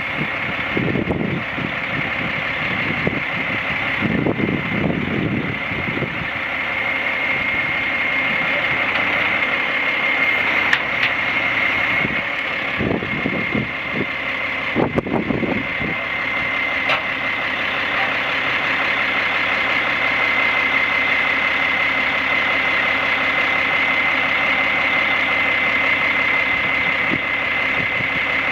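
Caterpillar diesel engine of a 1997 Ford 9500 boom truck running steadily at idle while the crane is worked, with a steady high-pitched whine over the engine sound.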